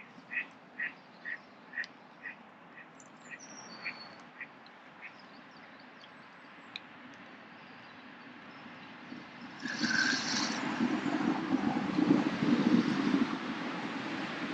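A duck quacking in a run of about a dozen short quacks, roughly two a second, growing fainter over the first few seconds. About ten seconds in, a louder steady rushing noise with a low hum comes in.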